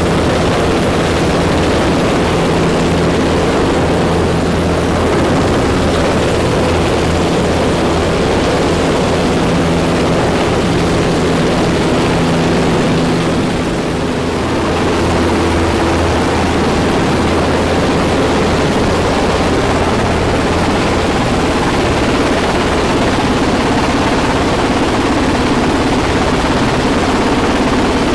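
Coastguard search-and-rescue helicopter hovering close overhead during a winch transfer: loud, steady rotor and engine noise with a constant hum, briefly dipping about halfway through.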